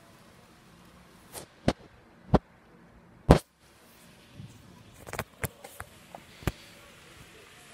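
About ten sharp clicks and knocks, scattered unevenly over a faint hiss; the loudest comes a little before the middle and a quick cluster follows later on.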